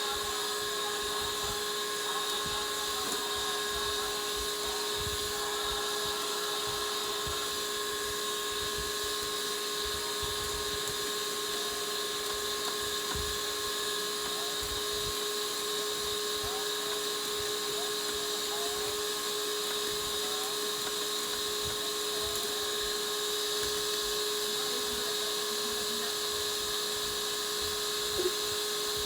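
A small electric motor running steadily at one speed, giving a constant whine over a hiss.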